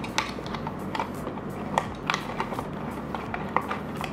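Small cardboard toy-car box and its packaging handled by fingers: scattered light clicks, taps and rustles at irregular spacing, over a steady low hum.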